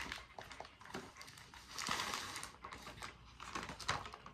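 Light taps and clicks of typing on a phone's keyboard, with some soft rustling.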